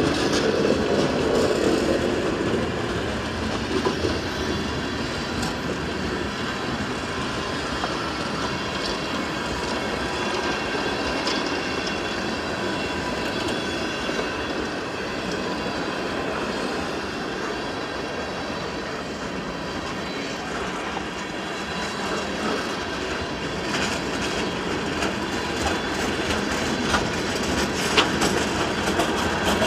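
Freight train cars rolling past, a steady rolling rumble with wheel clatter and a thin squeal from the wheels, and a sharp click near the end.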